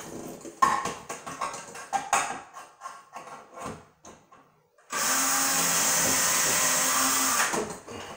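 Cordless drill running steadily for about two and a half seconds, driving a screw into the frame of a recessed medicine cabinet. It is preceded by a few seconds of light clicks and knocks as the drill and screw are handled.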